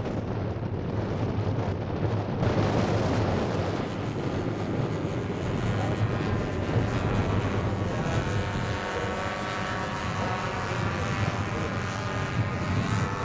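The four Zenoah 22cc two-stroke petrol engines of a large-scale radio-controlled Handley Page HP42 model biplane run steadily in flight as it passes. In the second half, several engine notes sound together.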